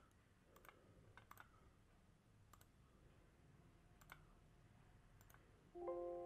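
A few faint computer mouse clicks. Near the end comes a Windows alert chime, a short chord of steady tones, as a warning dialog pops up on screen.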